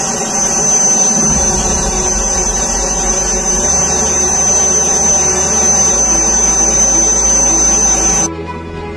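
Steady, loud turbine whine and rushing noise of a jet aircraft on the apron, with a single high tone held throughout. It cuts off suddenly about eight seconds in.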